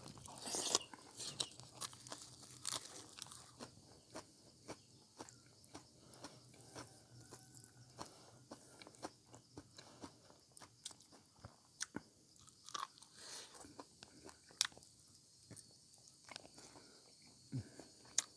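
A person eating: faint chewing and crunching, with many small, irregular clicks and smacks.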